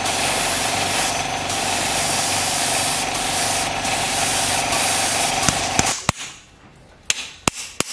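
Compressed air hissing steadily from a gravity-feed spray gun, with a steady whistle in it. It cuts off about six seconds in, and a few sharp taps follow.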